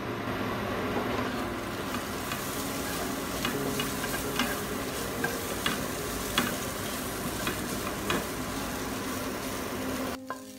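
Pressed tofu strips, preserved mustard stem and carrot sizzling in hot oil in a nonstick frying pan as a spatula stirs them, with scattered sharp clicks of the spatula against the pan. The sizzle cuts off abruptly near the end.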